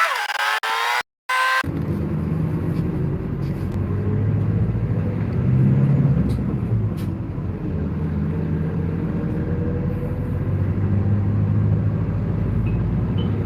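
Bus engine running with road rumble, heard from inside the cabin while the bus drives. The sound cuts out briefly about a second in, then settles into a steady low drone.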